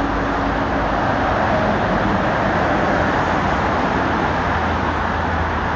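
Steady multi-lane road traffic: tyre noise and engines of cars, vans and lorries passing, with a deeper low rumble growing stronger in the second half.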